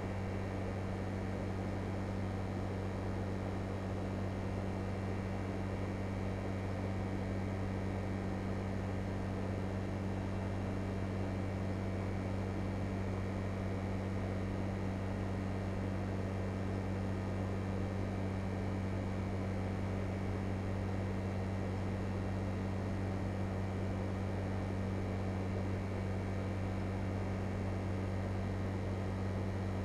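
LG Multi V 5 VRF air-conditioning outdoor unit running: a steady low hum with an even rush of fan and airflow noise, unchanging throughout.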